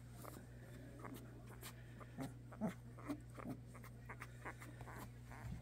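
Young Landseer Newfoundland puppies giving a series of faint, short whimpers and squeaks, with a few soft clicks between them.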